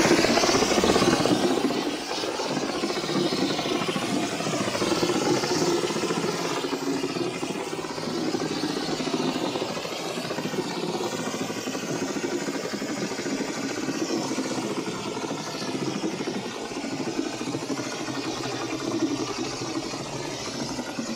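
Stucco hand hopper gun spraying an acrylic dash finish coat onto a wall: a steady hiss of compressed air and spattering material, louder for about the first two seconds, with an engine-like hum beneath.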